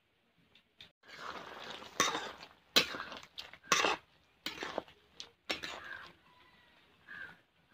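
Metal spatula stirring and scraping chicken curry in a metal karahi, with about five sharp clanks of the spatula against the pan between stretches of scraping.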